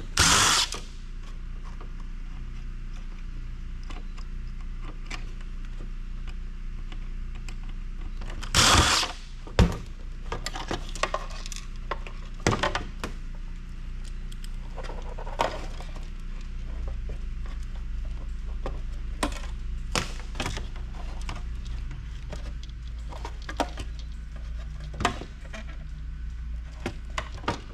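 Hand disassembly of a plastic electronic housing: scattered clicks, knocks and clatter of plastic parts, wires and a small circuit board being pulled free with tools, with two louder scraping rattles, one at the start and one about nine seconds in. A steady low hum runs underneath.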